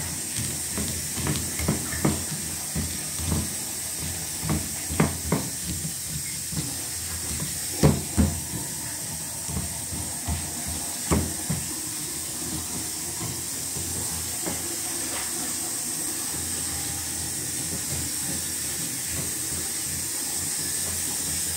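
Stone pestle pounding and grinding peanuts into a chilli paste in a stone mortar, making peanut sambal: irregular knocks for about the first twelve seconds, the loudest about eight seconds in. A steady high hiss runs underneath.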